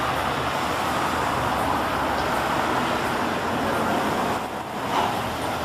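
Street traffic: cars driving by with a steady road noise that dips briefly about four and a half seconds in, then swells again.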